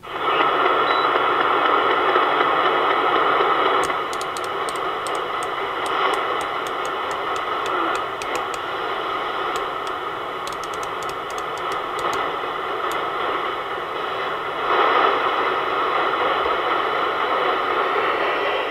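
Galaxy DX 33 HML CB radio receiving, its speaker giving a steady rush of static. The static shifts in level about four seconds in and again near fifteen seconds as the channel is switched, with faint ticks in places.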